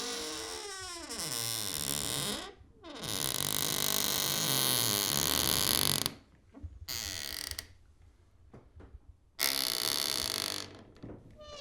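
Old door hinges creaking as doors are swung. A creak slides down in pitch over the first two seconds, then a long, low, grating creak runs for about three seconds. Two shorter creaks follow, the second about nine seconds in.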